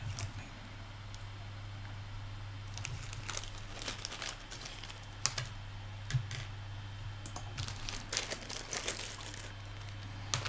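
Small zip-lock plastic bag crinkling and rustling as a beaded fishing rig is pulled out of it, with scattered light clicks of plastic beads and metal swivels against a wooden table. A steady low hum runs underneath.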